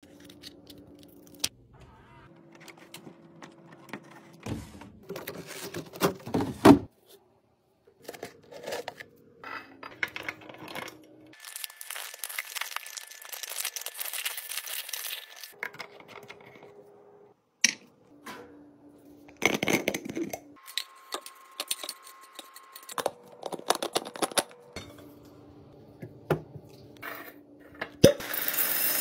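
Restocking handling sounds: a series of small clicks and knocks of plastic and glass, with rustling. About midway there is a stretch of several seconds of liquid hand soap being squeezed from a refill pouch into a glass dispenser bottle.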